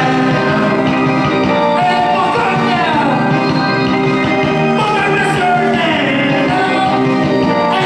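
A song playing loud and steady: backing music with a singing voice over it.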